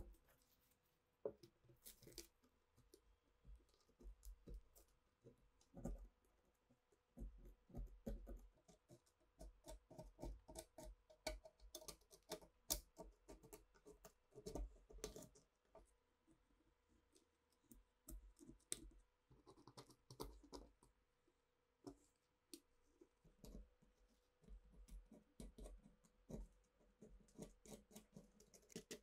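Thin steel pick scraping and chipping crusted rust off a corroded gun's steel receiver: irregular scratches and dry clicks as flakes break away and fall, coming in uneven flurries with short pauses.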